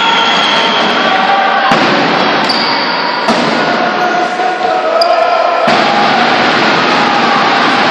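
Loud, steady crowd noise in a basketball gym, fans chanting and shouting. There are sharp thuds about two, three and a half, and six seconds in, and two short high whistles.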